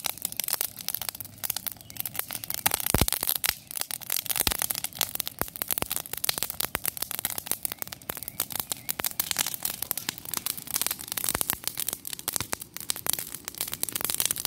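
Wood fire crackling steadily with dense, quick snaps and pops, and a couple of louder pops a few seconds in.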